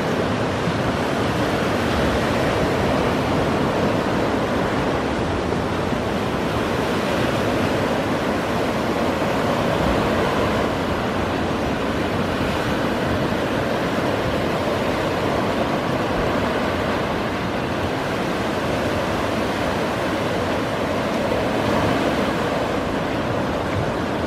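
Surf breaking on a sandy beach: a steady wash of waves with no pauses.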